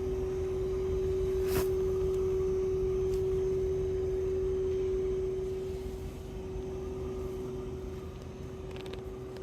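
Fujitsu AOUH30LUAS1 2.5-ton heat pump outdoor unit running at low speed in heat mode, giving off a steady whine at about 380–430 Hz over the low rumble of its slow fan. Technical support linked the tone to the inverter drive that sets the compressor speed. A single sharp click sounds about a second and a half in, and the whine eases slightly after about five seconds.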